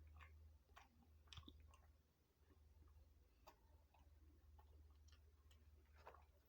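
Faint chewing and wet mouth clicks of someone eating, irregular and close to the microphone, over a steady low hum.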